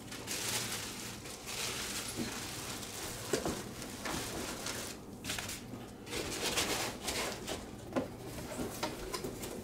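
Packaging being handled and unpacked: uneven rustling with a few light knocks.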